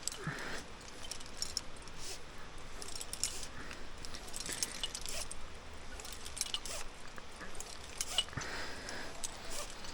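Metal climbing gear, such as carabiners and hardware racked on a harness, clinking and jingling in many small, irregular clicks during a rappel.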